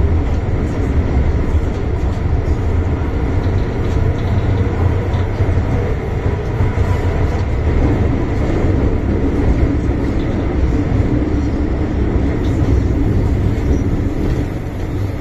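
Steady low rumble inside an MTR Island Line M-Train car under way: wheels on rail and running gear heard from the passenger cabin.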